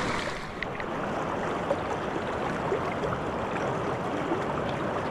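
Steady rush of the Kenai River's flowing water, with a few faint ticks about half a second in.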